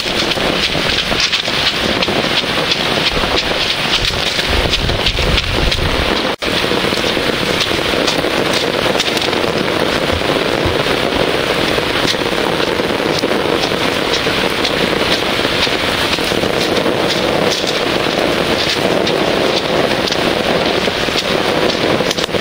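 Heavy summer downpour hissing steadily onto pavement and pebbles, with gusts of wind buffeting the microphone. The sound drops out for an instant about six seconds in.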